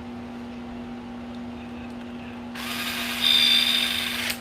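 Small electric screwdriver running for under two seconds, starting about two and a half seconds in and spinning up at its start, driving a screw into the drum unit's housing.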